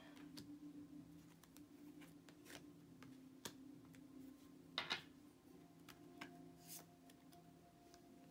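Near silence: quiet handling of tarot cards, with faint scattered clicks and a brief rustle about five seconds in, over a faint steady hum.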